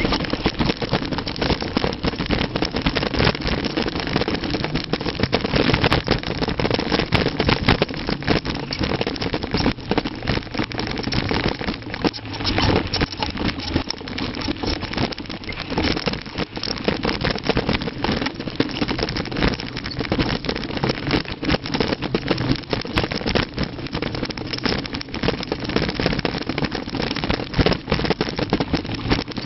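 Mountain bike descending a rough trail: a steady clatter of the frame, chain and tyres rattling over stones and ruts, dense with quick irregular knocks, with wind rushing over the microphone.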